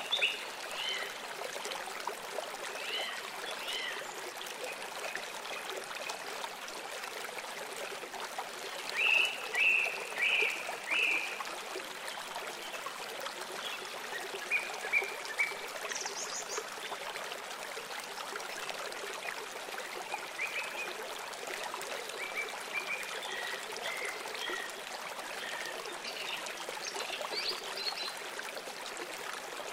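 Steady trickling of running water, with small birds chirping over it in short bursts; the loudest is a run of three chirps about ten seconds in.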